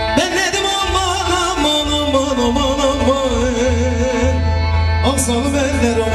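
Live barak havası folk singing: a man's amplified voice holds long, wavering notes over a keyboard's sustained chords and a low beat. The voice comes in just after the start and begins a new phrase about five seconds in.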